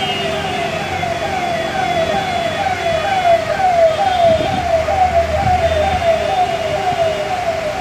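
An electronic siren sounding a fast repeating pattern of short falling tones, about two a second, with a low rumble of traffic underneath.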